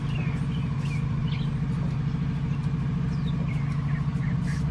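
Steady low mechanical hum with a fast even flutter, like an engine idling, with a few short high chirps over it.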